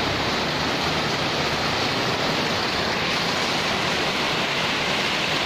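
Heavy rain pouring onto a wet concrete yard, a steady even hiss with no breaks.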